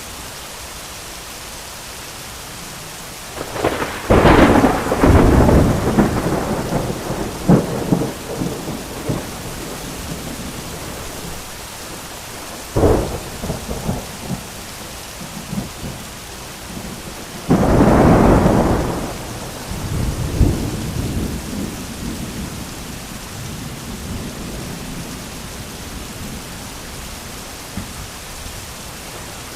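Heavy rain falling steadily as thunder cracks and rolls three times. The first is a loud peal about four seconds in that rumbles on for several seconds; a short, sharp crack comes near the middle, and another loud peal follows soon after and rolls away over a few seconds.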